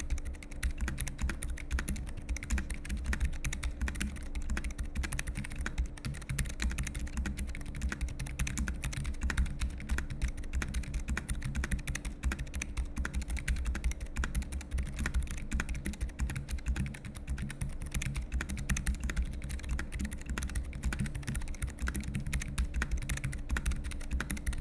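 Continuous fast typing on a Keychron K5 SE low-profile mechanical keyboard with Keychron optical brown (tactile) switches, a dense run of keystroke clicks that sound smooth and not noisy.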